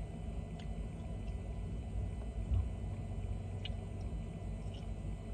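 Faint clicks and smacks of someone eating fried chicken, over a steady low hum.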